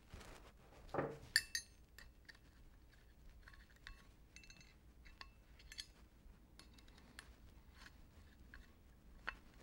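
Faint metal clinks and small taps as the jumbo jaws and their screws are handled and fitted onto a Oneway Talon expanding jaw chuck body, with a louder knock and clink about a second in.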